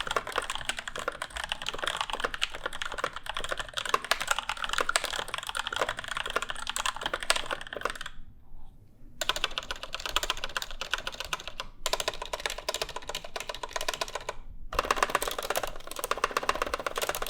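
Fast typing on a pre-built mechanical keyboard: a dense, clacky run of keystrokes with loud stabilizer wire rattle. It stops briefly about eight seconds in, then starts again in short separate bursts.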